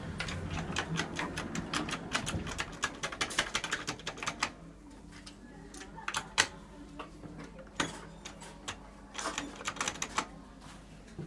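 Hydraulic lift car travelling: a steady low hum with rapid clicking and rattling for the first four seconds or so, then only occasional clicks.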